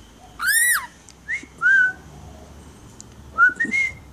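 Pet musk lorikeet whistling a few short notes that rise and fall in pitch, the loudest an arched note about half a second in, with more near one and a half seconds and three and a half seconds.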